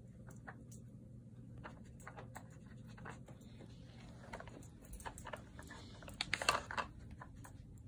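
A husky nosing and pawing at a plastic sliding-block treat puzzle and a plush toy box, making scattered plastic clicks and scratches. A quicker, louder run of clicks comes about six seconds in.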